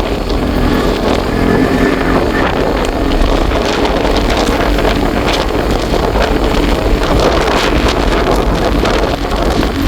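A vehicle under way, its engine running steadily, with loud wind buffeting the microphone.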